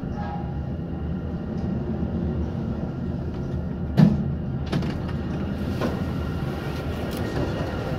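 KONE traction inclined elevator running with a steady low rumble. A loud clunk comes about halfway through, followed by lighter knocks as the car's sliding doors open.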